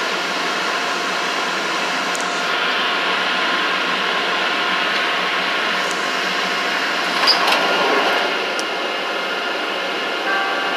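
Interior running noise of a CTA 3200-series rapid transit car, a steady rumble with motor whine, easing off as the train comes into a station stop. A sharp clunk sounds about seven seconds in.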